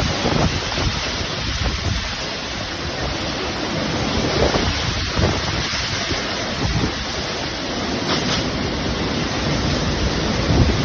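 Heavy monsoon rain, a steady rushing noise, with wind buffeting the microphone in uneven low gusts.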